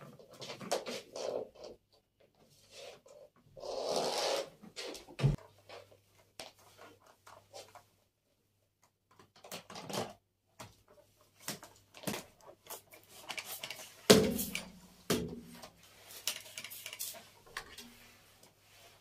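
Scattered household handling noises: rustling, light clicks and knocks, with a sharp knock about five seconds in and a louder one about fourteen seconds in.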